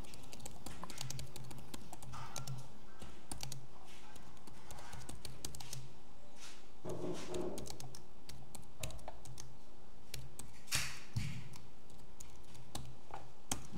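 Typing on a computer keyboard: a long run of irregular key clicks.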